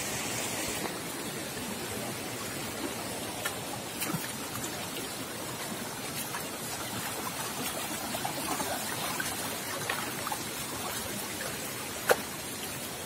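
Steady rush of shallow water running over a rocky track, with a few sharp clicks and a louder knock about twelve seconds in.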